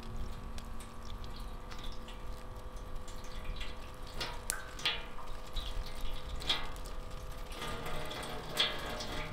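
Water from a pump-driven camp faucet running into a stainless steel sink, with a steady pump hum, and splashing as hands rinse mushrooms under the stream, most sharply a few times in the second half.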